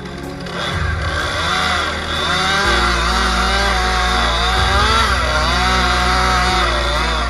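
Chainsaw cutting into a pine tree, its engine pitch rising and falling repeatedly as the chain bites and eases.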